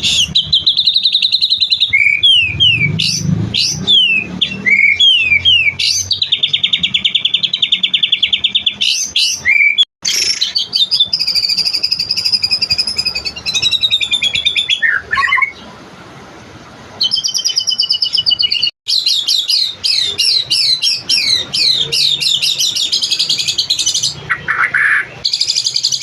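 White-rumped shama (murai batu) singing long, varied phrases of rapid repeated trills, swooping whistles and sharp notes, with a short lull about two-thirds of the way through and two abrupt breaks. These long unbroken runs packed with learned phrases are what keepers call a long 'tembakan' full of 'materi'.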